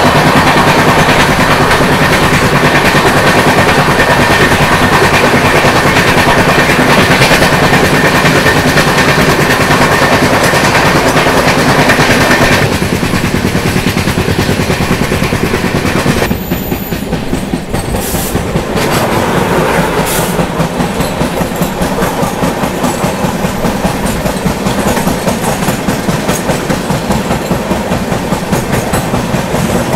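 A moving train at speed, heard from an open coach door: loud rushing wind and wheel-on-rail noise as another train passes close alongside. The noise drops about twelve seconds in, and later settles into a regular clickety-clack of wheels over the rail joints.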